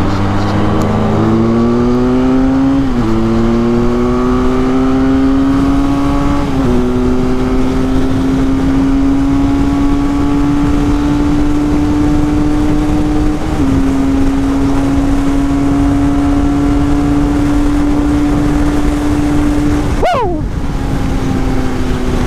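Benelli 502C's 500cc parallel-twin engine accelerating hard through the gears: the revs climb and drop at upshifts about three and seven seconds in, shift once more about halfway, then hold high at a steady speed until the throttle is closed suddenly near the end.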